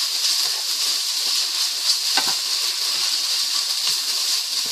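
Udon noodles and vegetables sizzling steadily in an oiled wok as a wooden spatula stirs and tosses them, with a couple of spatula knocks against the pan about two seconds in.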